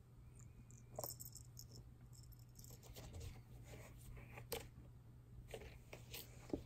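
Faint scratching and rustling of a kitten's claws on a corrugated cardboard scratcher as it tussles with a feather toy. There are sharper clicks about a second in, around the middle and near the end.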